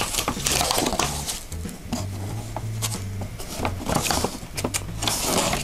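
A paper instruction sheet rustling and crinkling as it is handled and unfolded, in irregular bursts, over background music with a steady bass line.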